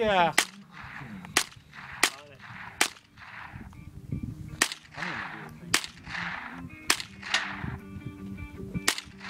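An AR-style .22 rifle fired slow and steady, about eight sharp shots at roughly one a second, each followed by a short echo.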